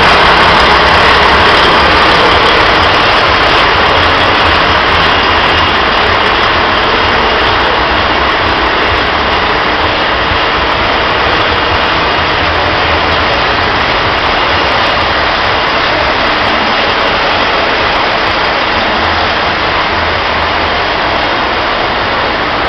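Heavy truck diesel engine running steadily, a loud even roar with a low throb underneath that slowly gets a little quieter.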